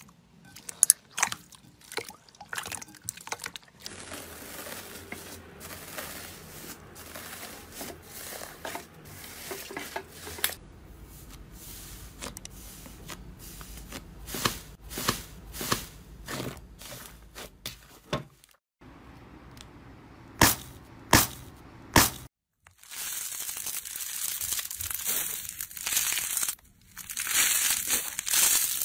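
Hands working slime. There are sharp crunchy clicks and pops at the start and again about two-thirds of the way through, with softer squishing in between. Near the end comes a loud crackling, tearing hiss as a fluffy slime is pulled apart.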